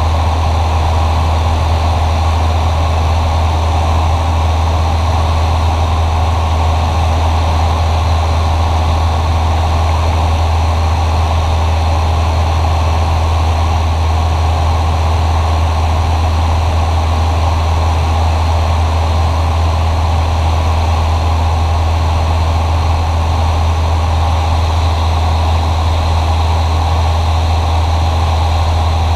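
Cessna 172SP's four-cylinder Lycoming IO-360 engine and propeller droning steadily in flight, heard from inside the cabin: a loud, even low hum that holds unchanged throughout.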